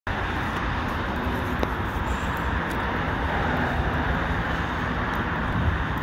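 Steady road-traffic noise, an even roar with a low, shifting rumble underneath.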